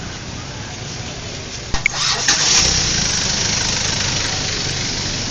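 An engine running, with a couple of sharp clicks a little under two seconds in, after which the sound grows louder.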